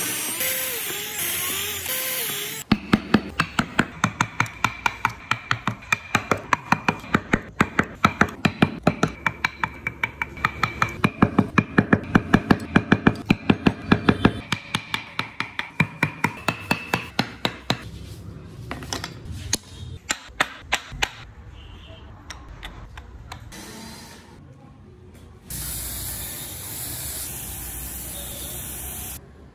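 A power drill boring into a cypress board, then a carving chisel cutting wheel-rim openings in quick, even taps at about four a second. Near the end a spray gun hisses steadily for a few seconds, spraying glossy coating onto the finished wooden parts.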